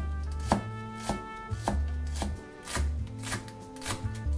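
Chef's knife chopping garlic and scallions on a plastic cutting board, sharp strikes about twice a second, over soft background music.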